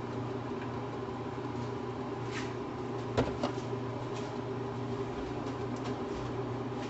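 A steady kitchen hum, with two sharp knocks in quick succession a little over three seconds in and a few fainter clicks.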